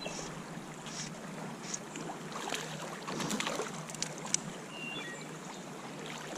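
Creek water running, with scattered small splashes and clicks.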